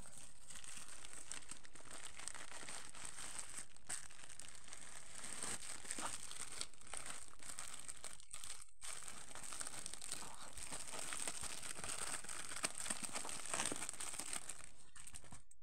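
Plastic packaging crinkling and rustling as it is handled: a bubble-lined mailer and clear plastic bags being pulled open and emptied. There is a short pause about eight seconds in.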